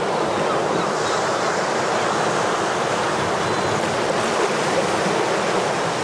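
Small sea waves breaking and washing over a pebbly shore, a steady sound of surf.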